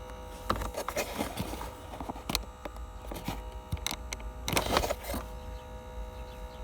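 The small aspirator fan motor of a Ford Focus 2's climate-control cabin air temperature sensor running with a steady, nagging hum made of several even tones. Short clicks and rustles of handling break in over it, the loudest cluster about five seconds in.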